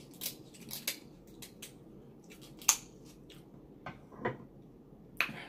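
Close-miked eating and mouth sounds: scattered wet clicks, smacks and crackles at irregular intervals, the sharpest about two and a half seconds in.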